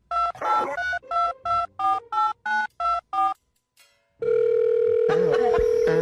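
Telephone keypad dialing tones: about ten short two-note beeps in quick succession, then a loud steady tone from about four seconds in.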